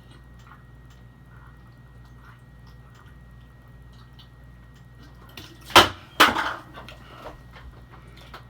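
Person eating close to the microphone: faint chewing and small mouth clicks, then two loud sudden knocks or clatters close together about six seconds in.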